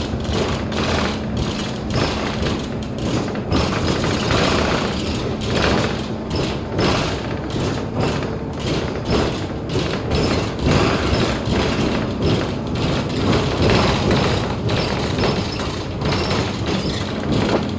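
A moving bus heard from inside: the body and interior fittings keep squeaking and rattling in quick, irregular clicks over the steady running of the engine.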